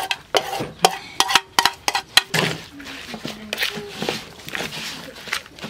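A metal spoon clinks and scrapes against a plate in a quick string of sharp clicks as shredded snakehead fish is pushed off it into a plastic bowl. After about two seconds this gives way to a hand squishing and mixing the fish salad in the bowl.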